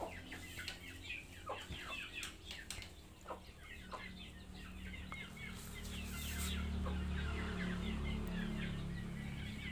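Chickens clucking and chirping in quick, scattered calls, with a low rumble swelling in the second half.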